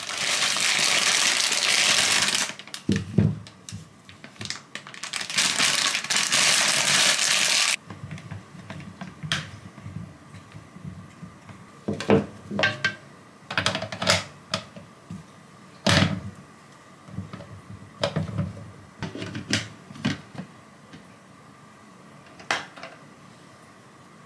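A plastic bag rustling and crinkling loudly in two long stretches, then a string of knocks and clunks as sweet potatoes are set into the clear plastic baskets of a two-tier food steamer and the tiers are fitted together.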